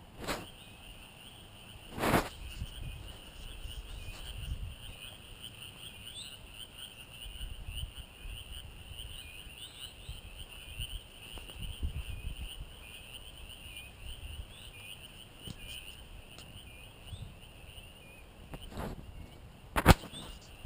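Steady, high-pitched trilling chorus of small calling animals such as crickets and frogs. Under it runs a low rumble, and two sharp knocks sound, one about two seconds in and a louder one near the end.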